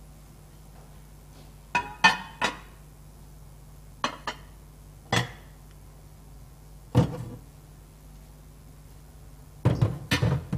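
A serving utensil knocking and clinking against a cooking pan and serving dish as minced meat is dished out: about nine sharp knocks in small groups of one to three, over a steady low hum.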